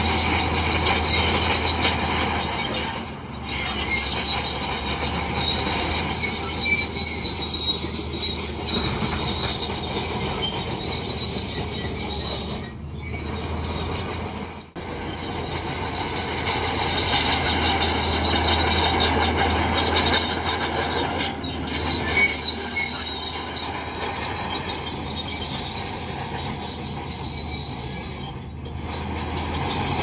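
Crawler bulldozer at work: a low diesel drone under high-pitched squealing and clanking from its steel tracks, dipping briefly a few times.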